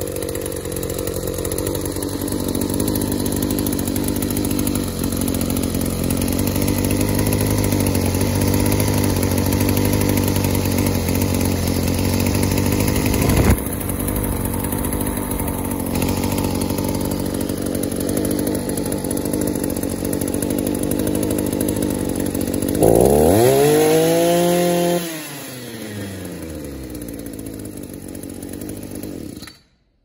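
Echo two-stroke string trimmer engine running steadily after its loose intake manifold was tightened and resealed with a new gasket, curing the vacuum leak that kept it from starting. Most of the way through it is revved once, the pitch rising and falling, then it settles to a lower idle and cuts off near the end.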